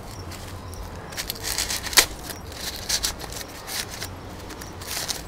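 Dry, papery corn husks crackling and tearing as they are peeled back by hand from an ear of sweet corn, with one sharp snap about two seconds in.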